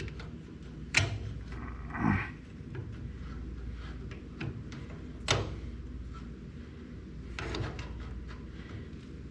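Metal parts of an Apex Rotarex washing machine's shift mechanism clicking and knocking under hand work while a new shift spring is fitted. The strikes are sharp and separate: about a second in, around two seconds, about five seconds in, and a short run near the end. A steady low hum sits underneath.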